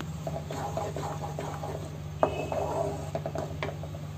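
Wooden spatula stirring and scraping thick masala gravy in a nonstick wok, in a run of irregular scrapes and light knocks, with one sharp knock about two seconds in.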